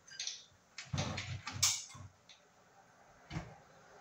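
Scattered knocks and a brief scrape of hardware being handled as a ceiling fan's electrical box is fastened up into the wood overhead: a knock at the start, a cluster of knocks about a second in, and one more knock near the end.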